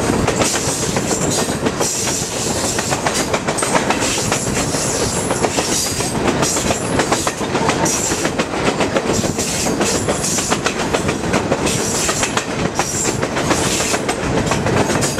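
Passenger train rolling along the track, its wheels clicking over rail joints in a continuous clatter with steady running noise.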